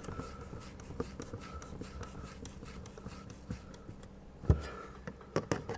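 Hand screwdriver driving a screw into a camera mounting plate: faint scraping and small clicks, with one thump about four and a half seconds in.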